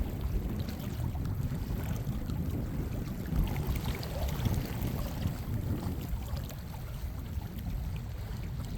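Wind buffeting the microphone on a fishing boat on open water: a steady low rumble that rises and falls in small gusts.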